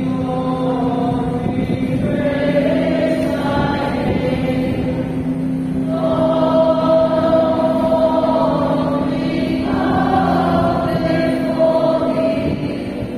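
Voices singing a hymn together in long held notes that change every few seconds, over a steady low sustained note underneath.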